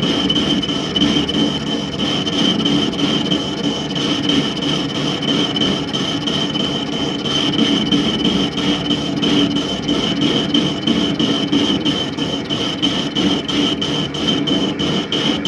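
Mini lathe running with a steady high whine while the cutting tool scrapes and rasps across the metal of the tailstock base. Over the last few seconds a fast, even ticking joins in.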